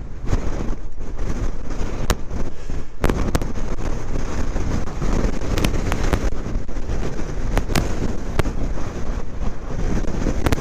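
Strong wind gusts buffeting the microphone of a moving motorcycle: a loud, steady low rumble with many sharp crackles and pops scattered throughout.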